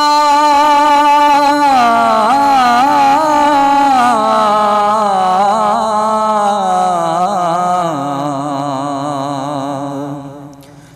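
Male voice singing a wordless, melismatic opening to a Punjabi naat: long held notes that bend and glide in pitch, with no instruments, fading away near the end.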